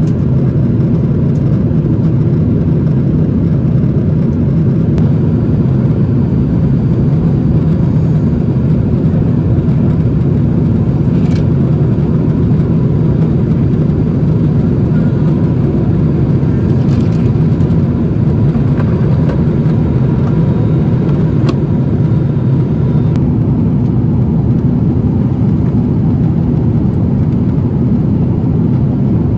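Steady cabin noise inside a Boeing 777-300ER in flight: a loud, even rumble of engines and airflow with no change in pitch or level, and a few faint clicks partway through.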